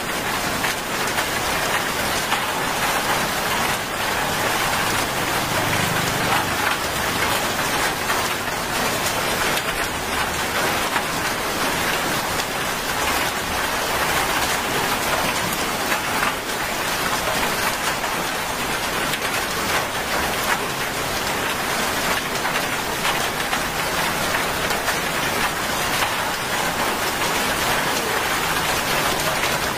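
Steady rain falling on a wet paved road, puddles and roadside plants: an even, unbroken hiss of drops.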